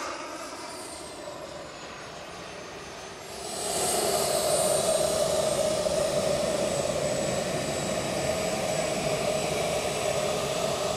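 JetCat P160SX model jet turbine in a radio-controlled Eurofighter EF-2000, running at a low setting with a steady whine and a high whistle as the jet taxis in after landing. It grows louder about three and a half seconds in and then holds steady.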